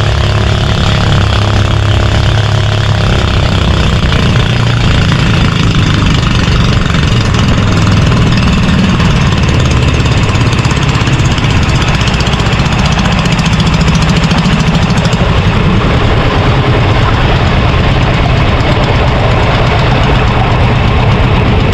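Small fishing boat's engine running steadily under way, its low note over a constant rush of noise.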